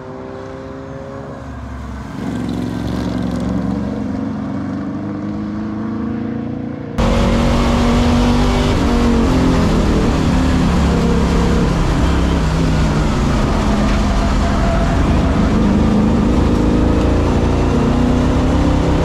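Fox Body Mustang road-race car's engine under hard acceleration on track. It is first heard from trackside, rising in pitch. About seven seconds in an abrupt cut brings it in louder from inside the cabin at speed.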